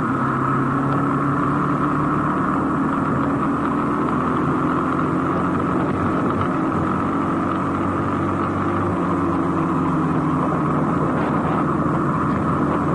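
Small motorcycle's engine running steadily while riding on a rain-soaked road, under a constant rushing hiss.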